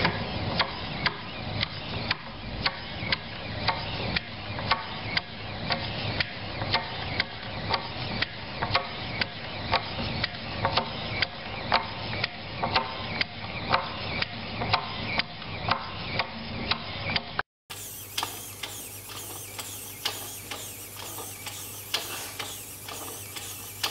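Single-motor inchworm robot's small electric motor running steadily, its mechanism clicking about twice a second as it crawls. After a sudden cut, the wireless inchworm robot climbs with fainter clicking over a steady low hum.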